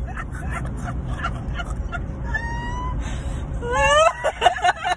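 A person's drawn-out whining vocal sounds: one held note, then a sharply rising one near the end, over a steady low rumble.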